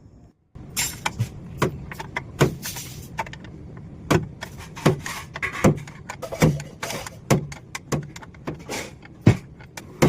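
Irregular clicks, clinks and knocks of tools and metal parts as a washing machine motor is taken apart, a few sharp hits a second.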